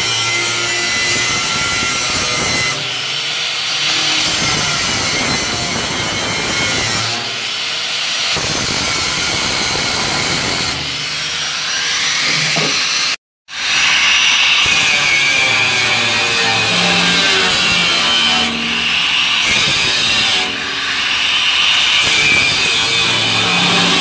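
Angle grinder running and cutting into the steel wall of a smoker tank, grinding out a round hole for a smoke-stack pipe. The grinding is steady and loud, with a short break just past halfway.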